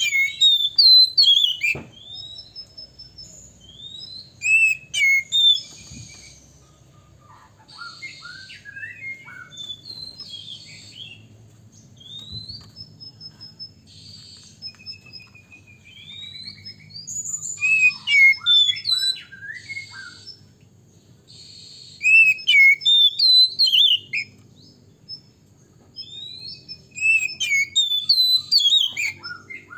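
Male oriental magpie-robin singing: loud bursts of varied slurred whistles, quick rising and falling notes and harsh raspy notes, with softer phrases between the bursts.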